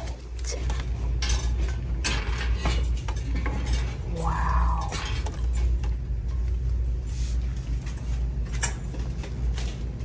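A small metal-and-wood tabletop decor sign handled on a store shelf: scattered clicks and light clinks over a steady low hum.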